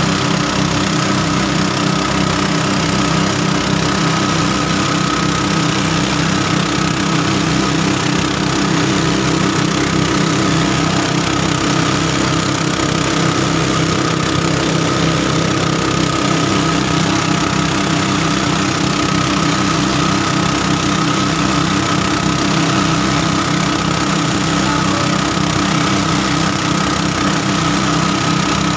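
An engine running steadily at a constant speed, with an even rhythmic throb.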